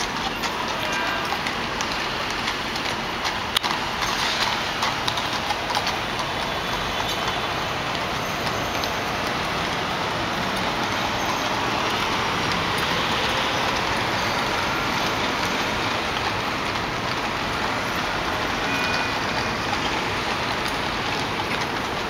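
Steady rush of city street traffic heard from high above an avenue, with scattered sharp clicks in the first few seconds.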